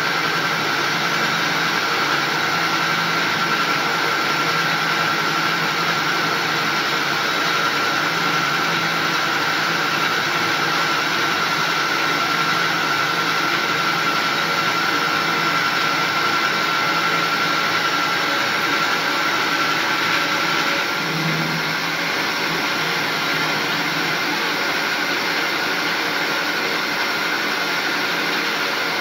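Metal lathe running, turning a metal part: a steady machine noise with a thin high whine that drops out about three-quarters of the way in.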